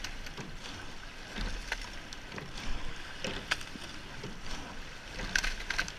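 A racing eight being rowed: a steady rush of water, with a sharp clack from the oars in their oarlocks about every two seconds, in time with the stroke.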